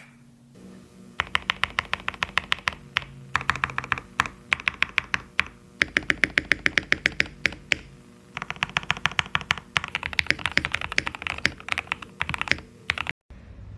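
Mechanical keyboard fitted with KTT Strawberry linear switches being typed on: fast runs of keystrokes in several bursts with short pauses between them, cutting off suddenly near the end.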